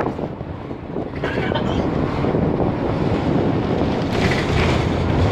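Running noise heard from inside a moving Optare Solo SR single-deck bus: a steady engine and road rumble that grows a little louder toward the end.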